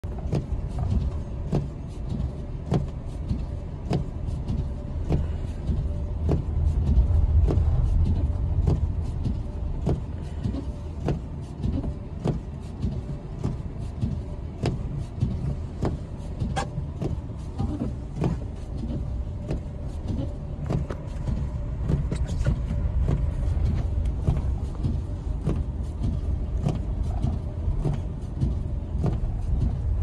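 Car driving slowly over a snowy road, heard inside the cabin: a steady low engine and tyre rumble that swells a few seconds in, with regular short clicks somewhat under two a second.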